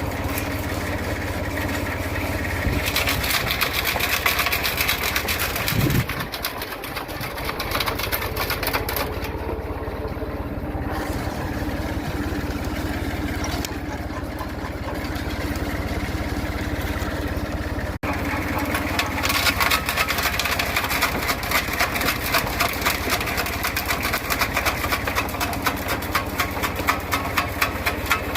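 Screw wood chipper running steadily, with stretches of rapid cracking and ticking as material passes through the screw.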